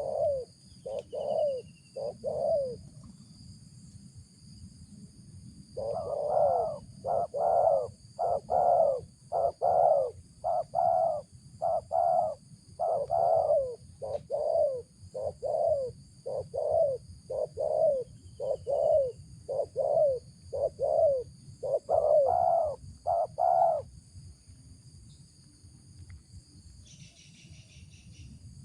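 Spotted dove (tekukur) cooing: a few coos, a short pause, then a long, even run of low coos at a little over one a second, which stops a few seconds before the end.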